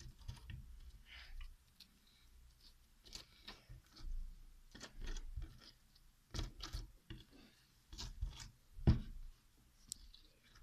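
Slime being squeezed and worked, making quiet irregular sticky clicks, crackles and pops, with the loudest pop about nine seconds in.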